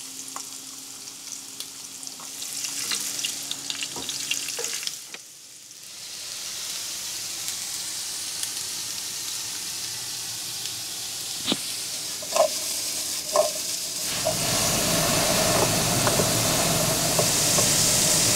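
Food sizzling in a frying pan on a gas stove, with a few sharp clicks of a utensil against the pan; the frying dips briefly about five seconds in and grows louder and fuller about fourteen seconds in.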